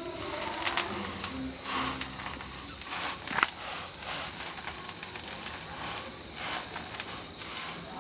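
Fresh tea leaves rustling and crackling as gloved hands toss and roll them in a hot wok, the pan-firing (roasting) stage of hand-made Puer tea. Irregular swishes and sharp little crackles come at no steady rhythm.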